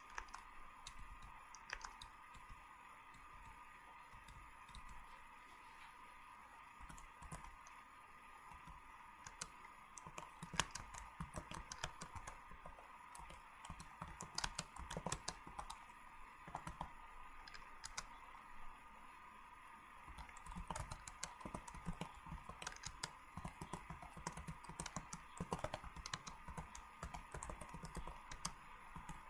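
Faint, irregular clicking and tapping, sparse at first and denser from about ten seconds in, over a steady faint hum.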